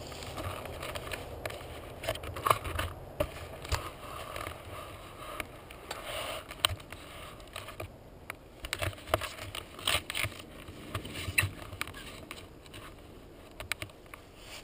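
Handling noise from a helmet-mounted camera: irregular knocks, clicks and scrapes as the helmet is held and moved, with rustling in dry leaves.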